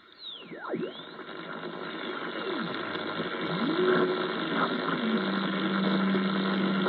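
Yaesu FRG-8800 receiver on the longwave band: static hiss with whistles gliding up and down in pitch as the receiver is tuned past station carriers, then a steady low heterodyne whistle from about five seconds in.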